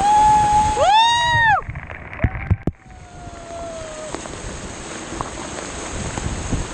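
High-pitched whooping cries from rafters: one held call, then a couple of overlapping calls that rise and fall, and a falling call a few seconds in. Rushing river water hisses underneath.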